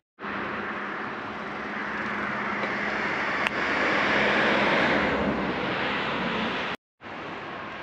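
A passing motor vehicle: its noise swells to a peak about four seconds in and then fades, over a faint steady hum. The sound cuts out abruptly near the end.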